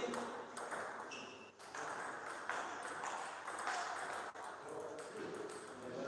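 Celluloid-type plastic table tennis ball clicking in a series of short, sharp taps as it bounces off table tops and rackets.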